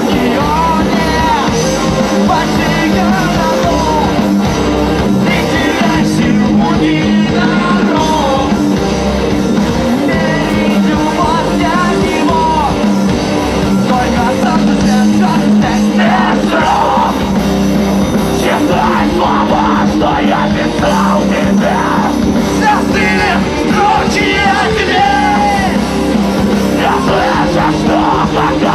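Live rock band playing a loud, heavy song, with a vocalist yelling and singing over the band.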